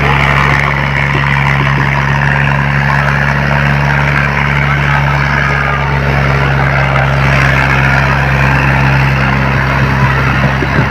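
Fiat 480 tractor's diesel engine running steadily under heavy load as it drags a disc harrow through ploughed ground, with a crowd shouting over it.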